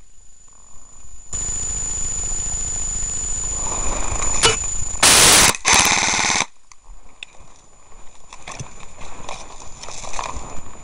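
Airsoft electric rifle firing on full auto, one sustained burst of rapid, buzzing shots that starts about a second in and cuts off abruptly after about five seconds. Twigs and undergrowth crackle as the player then moves through the brush.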